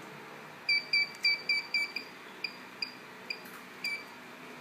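Security alarm system beeping in response to an access card: about six short high beeps in quick succession, then four more at slowing, wider spacing, the last a little longer.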